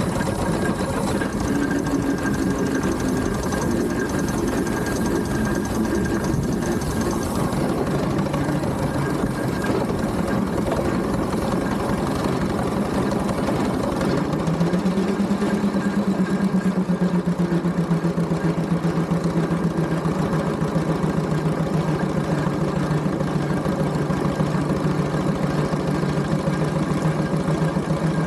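Engine running with a fast, even mechanical knock. About halfway through a steady low hum comes in, dips slightly in pitch and then holds.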